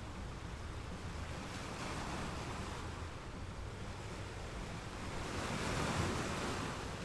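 Sea waves washing in, the surge swelling about two seconds in and again more loudly near the end.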